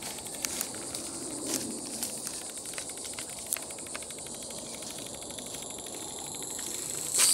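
Insects trilling steadily in the woodland, with a rapid pulsing trill for a few seconds in the middle. Scattered light clicks and rustles come through, and there is a brief louder burst of rustling noise at the very end.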